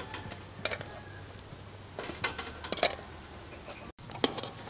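Metal tongs clinking and knocking against a metal wok a few times as boiled eggs are turned in hot water.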